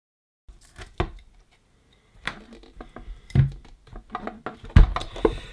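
Plastic clicks and knocks from handling the opened casing of a JBL Xtreme 3 speaker and its loose drivers, several separate knocks with the loudest near the end. The first half second is silent.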